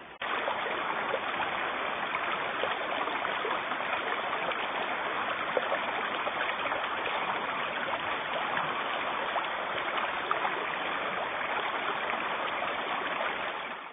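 Shallow river running over a stony bed: a steady rush of rippling water.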